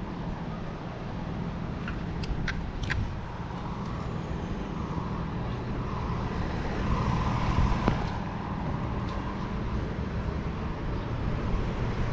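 Bicycle ride on a city street: a steady low rumble, with the bike chain clicking sharply a few times about two to three seconds in, and light vehicle traffic going by.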